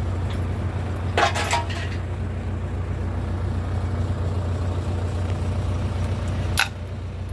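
Excavator's diesel engine running steadily with a low hum, with a short clatter about a second in and a single sharp knock near the end, after which the engine runs a little quieter.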